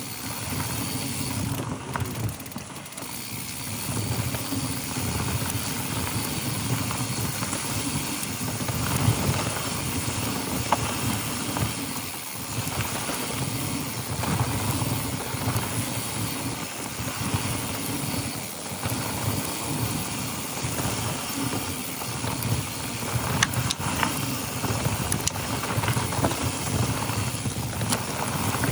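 Mountain bike riding down a dry dirt trail: steady rumble of knobby tyres over dirt and loose stones, with a few sharp knocks and rattles from the bike over bumps.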